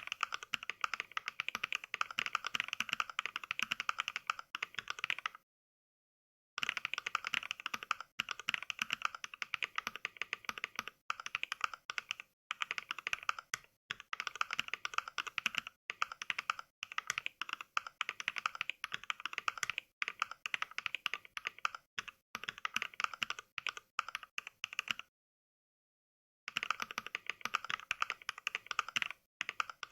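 Rapid typing on a mechanical keyboard, heard as the Mechvibes "NK Cream" sound pack: sampled keystroke clicks played back by software with each key press. The clicking stops dead twice for about a second, once about five seconds in and again near the end.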